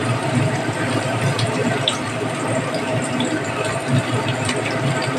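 Chopped ridge gourd and onion frying in oil in a metal wok over a gas flame: a steady sizzle with scattered small crackles.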